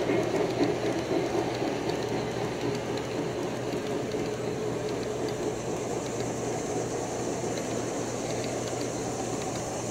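G-scale model freight cars rolling past on the garden railway track: a steady rolling rumble with faint light clicks of the wheels over the rails, slowly fading as the train moves away. A low steady hum runs underneath.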